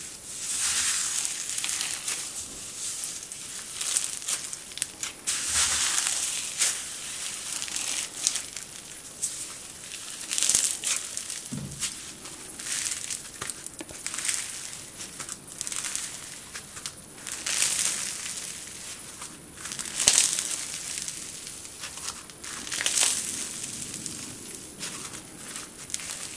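Crunchy slime packed with tiny white polystyrene foam beads being squeezed and kneaded by hand. It gives a crackling crunch on each squeeze, repeating every one to three seconds.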